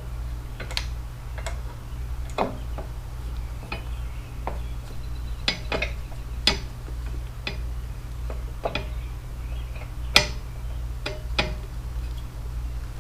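Hand tools and metal parts clinking and clicking at irregular intervals, about one knock a second, during reassembly of a motorcycle's front wheel and brake. A steady low hum runs underneath.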